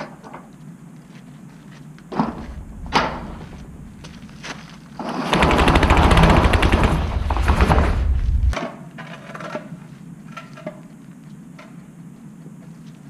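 Two thumps, then a metal roll-up storage unit door rattling loudly for about three seconds as it is raised.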